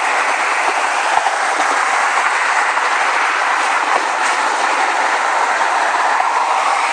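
Steady road and wind noise of a car moving at freeway speed, with a few faint knocks.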